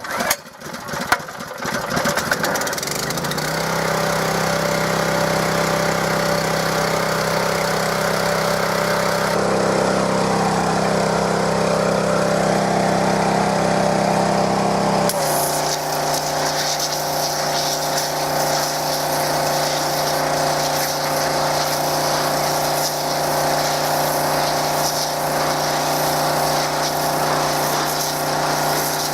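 A gas pressure washer's 6.5-horsepower engine starts up, catching roughly for a second or two, then runs steadily. About halfway through, its note drops and a loud hiss of the high-pressure water jet joins it, the engine now working under load as the washer sprays.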